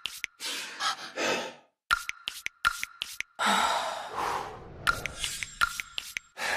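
Edited sound-design intro: clusters of sharp clicks between several breathy, sigh-like swells of noise, with a faint high steady tone behind the clicks.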